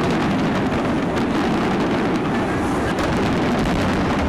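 Fireworks finale barrage: aerial shells bursting in a dense, unbroken run of bangs, steady and loud.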